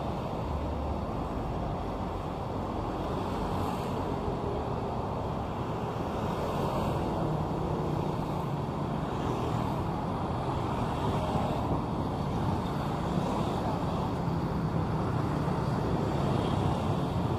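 Street traffic: a steady rumble of passing cars and other road vehicles, growing a little louder in the second half.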